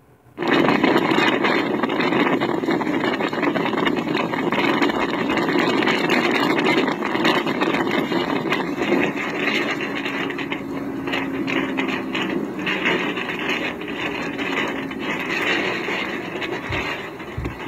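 Steady rushing road and wind noise of a car driving, heard from inside the cabin, starting after a brief dropout at the very start.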